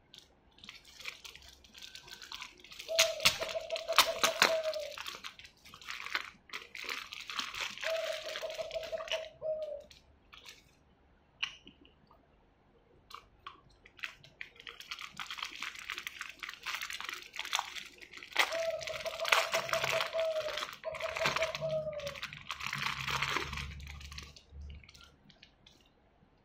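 Clear plastic packaging crinkling and crackling as small plastic toy parts are unwrapped by hand, in two long spells with a pause between. A low, steady hooting tone sounds four times in the background.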